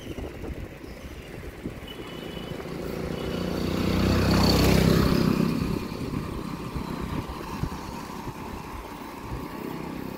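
Motorcycle passing close by. Its engine grows louder to a peak about four to five seconds in, then falls away quickly as it pulls ahead, over a steady background rush.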